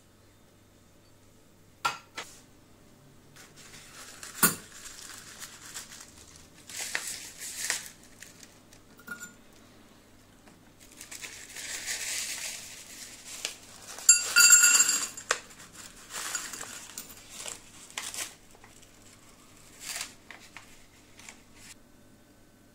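Handling of a miniature steel grill and a small paper charcoal bag: the paper crinkling and rustling, sharp metal clicks, and, a little past halfway, a loud clattering burst with a metallic ring as charcoal lumps tip into the stainless steel bowl.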